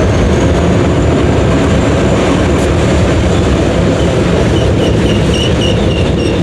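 Reading & Northern freight train rolling past, a steady heavy rumble of diesel locomotives and wheels on rail.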